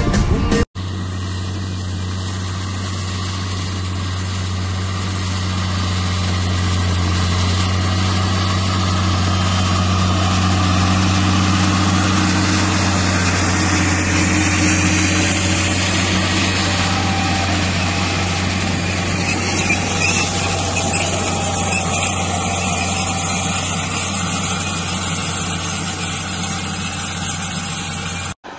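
Farm tractor's diesel engine running steadily under load while pulling a no-till seed planter through crop stubble, a deep even hum with a broad rushing noise over it. A snatch of music cuts off less than a second in, before the engine sound begins.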